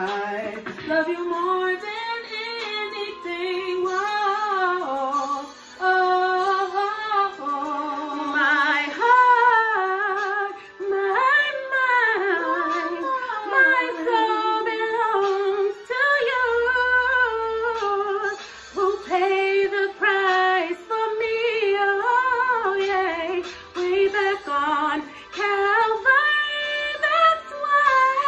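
Three women singing a song together, holding long notes with vibrato.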